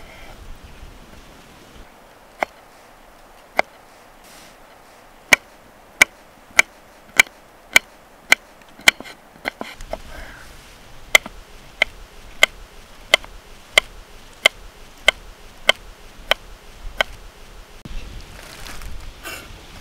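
Kitchen knife slicing a small pickled cucumber on a wooden cutting board: a row of sharp knocks as the blade strikes the board, about one every two-thirds of a second, with a short pause near the middle.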